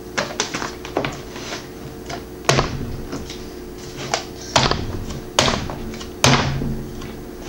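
Hard plastic parts of a Hasbro Toilet Trouble toy toilet being handled and fitted together: a string of sharp clicks and knocks, with four louder thunks in the second half.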